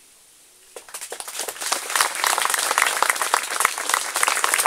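Audience applauding, starting about a second in and swelling into steady clapping.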